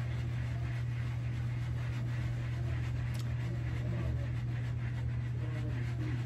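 A steady low hum with a faint even hiss above it, unchanging throughout.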